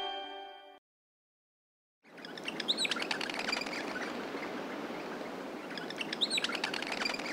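A held music chord fades out, then after about a second of silence an outdoor birdsong ambience starts: small birds chirping now and then over a steady background hiss.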